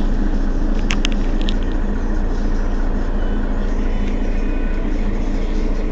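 Mercedes-Benz Citaro facelift city bus's rear-mounted engine idling steadily while the bus stands still, with a few short sharp clicks about a second in.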